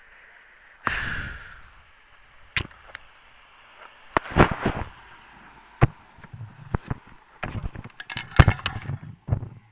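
Irregular knocks and clicks, a dozen or so with low thuds among them, heaviest about four and a half and eight and a half seconds in: handling noise from a camera being moved and repositioned.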